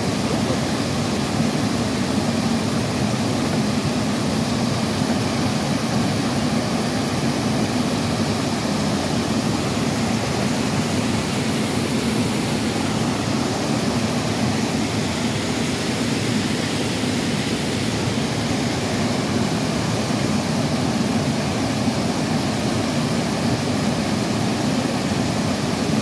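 Waterfall cascading over rocks, a steady, unbroken rush of water.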